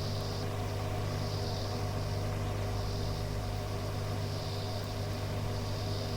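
Steady hum and hiss of a radio receiver between transmissions, with a strong low drone throughout and a higher hiss that swells and fades every second or so.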